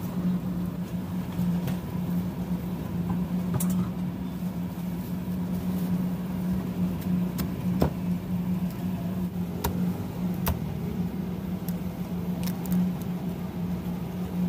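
Meat cleaver knocking on a round chopping block as a roasted duck is chopped: a few separate sharp knocks, the loudest about eight seconds in, over a steady low motor hum.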